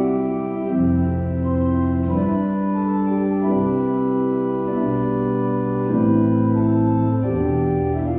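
Church organ played at the console: slow sustained chords with a low bass line moving beneath, notes changing about once a second.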